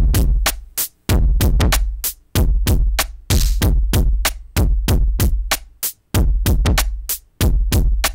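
Electronic drum machine pattern played through the Hexinverter Mutant Hot Glue's analog compressor, its gain pushed up so that the compressor circuit overdrives and distorts the drums. A booming kick with a long decay lands about every second and a quarter under rapid clicks and hi-hats, about four a second.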